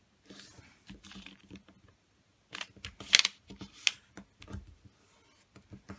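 A square sheet of origami paper being folded and creased by hand: short rustles and sharp crackles as the paper is pressed and smoothed along the fold, the loudest about three seconds in.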